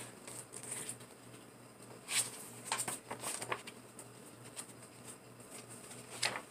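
A folded paper insert being handled and unfolded by hand, rustling and crinkling in a few short strokes about two seconds in, again around three seconds in, and once more near the end.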